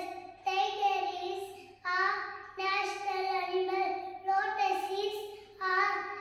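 A young boy reciting in a sing-song chant, close to the microphone. He voices phrase after phrase, each held on a fairly level pitch, with short breaths between them.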